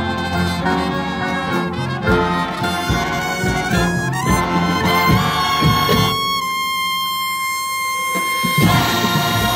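Drum and bugle corps horn line playing its show music on the march, a full brass ensemble with percussion hits. About six seconds in the band holds one long high chord for a couple of seconds, with the low brass dropping out, before the full ensemble comes back in.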